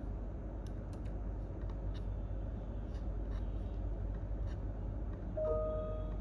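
Computer keyboard keys clicking sporadically over a steady low hum of room noise. About five seconds in, a brief steady tone sounds for under a second.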